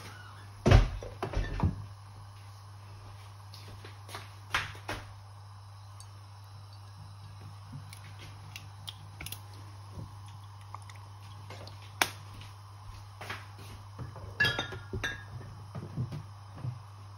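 Scattered clinks and knocks of kitchen utensils against a saucepan over a steady low hum, the loudest knock about a second in and a cluster of clinks near the end.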